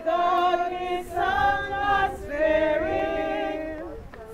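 A group of men and women singing a hymn together, in phrases of long held notes with short breaths between them.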